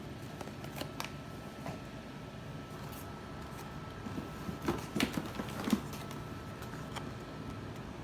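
Packaged grocery and household items and cardboard packing being handled: scattered light clicks and taps, with a short cluster of knocks and rustling about halfway through, over a steady low background hum.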